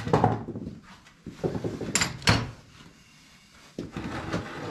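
Rummaging through hand tools and setting a set of metal combination wrenches down on the lift: short bouts of metallic clattering, with two sharp clinks about two seconds in.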